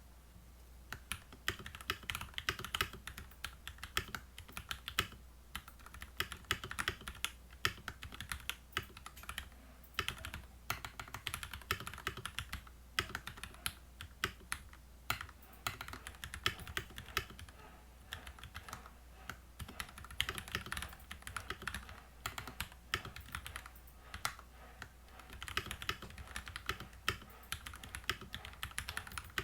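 Typing on a HolyTom TM680 mechanical keyboard with Krytox-lubed Gateron Milky Black linear switches and clipped, lubed stabilizers. Fast runs of keystrokes come in bursts, with short pauses every few seconds.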